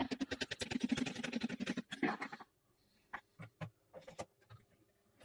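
Quick, rapid scrubbing strokes as an HDMI cable's plug is cleaned, lasting about two and a half seconds, followed by a few light clicks and taps.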